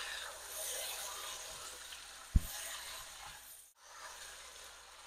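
Beef and chicken pieces frying in hot oil in a pot, a steady sizzling hiss that slowly fades, with one sharp low thump about two and a half seconds in.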